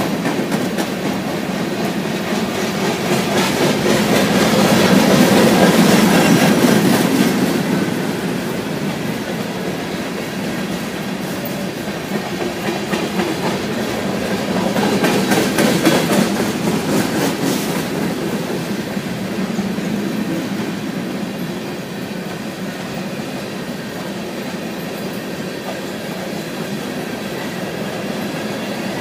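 Freight train of covered hopper cars rolling past, with steel wheels clacking over the rail joints. The rolling noise swells louder twice, about 4 seconds in and again about 15 seconds in.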